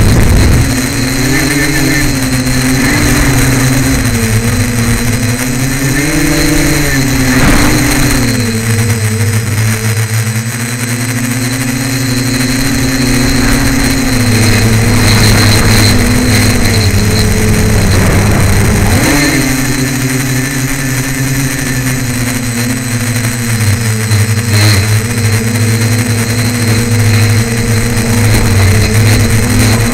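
Tricopter's electric motors and propellers buzzing in flight, heard close from the onboard camera. The pitch shifts up and down several times as the throttle changes.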